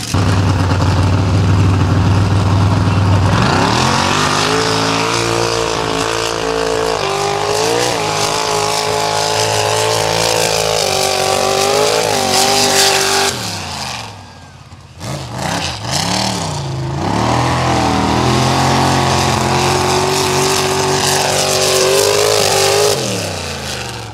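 Mega truck engine revving hard under acceleration, its pitch climbing and stepping as it pulls, dropping off about 13 seconds in, then pulling hard again before fading near the end.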